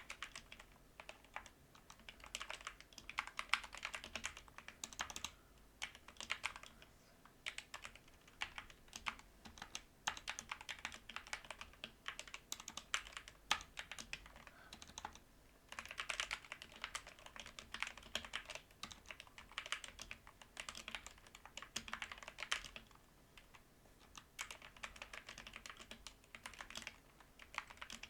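Typing on a mechanical keyboard with lubed Gateron Yellow linear switches under pudding keycaps: quick runs of keystroke clacks, broken by a couple of short pauses.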